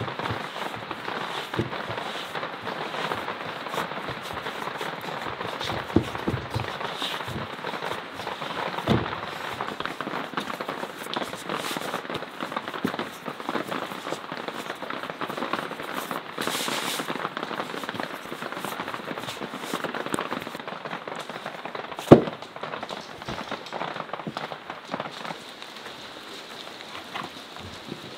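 Hands working flour and dough, first mixing in a stainless steel bowl, then kneading on a wooden board: a continuous scratchy rustling with scattered small clicks. One sharp knock stands out about 22 seconds in.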